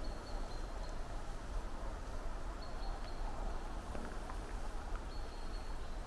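Footsteps of a walker on a forest floor, a steady rustling crunch with a few small twig-like clicks. A thin, high, level whistle sounds three times, each under a second long.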